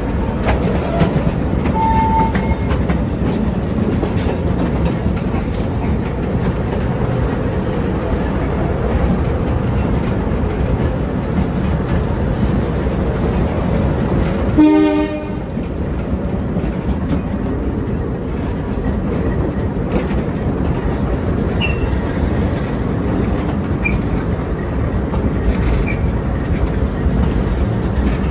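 Narrow-gauge heritage train running, heard from an open-sided carriage: a steady rumble and wheel clatter on the rails. About halfway through there is one short horn blast.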